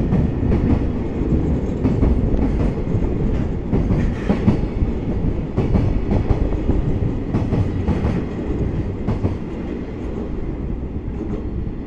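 Freight train of container wagons rolling past, its wheels clattering rhythmically over the rail joints under a steady rumble. The clatter eases off as the last wagon passes, about ten seconds in.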